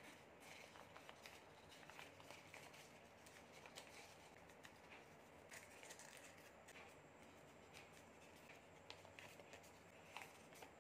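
Faint crinkling and rustling of a thin sheet of origami paper being folded and creased by hand, with scattered small crackles.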